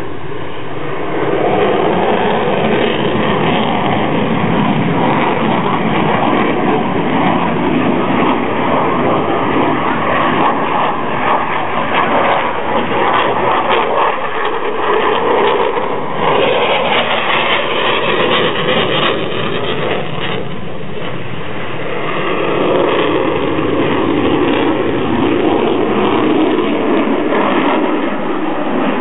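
Eurofighter Typhoon's twin jet engines running loud as the fighter flies a display: a continuous jet roar that swells and eases, dipping briefly about two-thirds of the way through.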